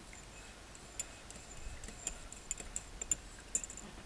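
About a dozen small, sharp clicks and taps at an irregular pace, starting about a second in, with a faint high thin tone behind them.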